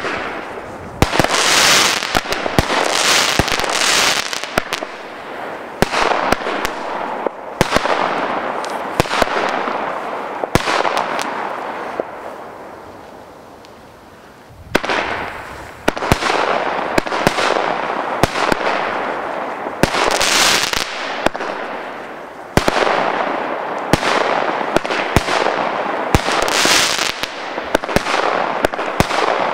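GBV Weco 'Nuclear' firework cake firing a long series of shots, sharp bangs over a continuous hiss. The firing thins out and fades about halfway through, then restarts sharply with a fresh run of shots.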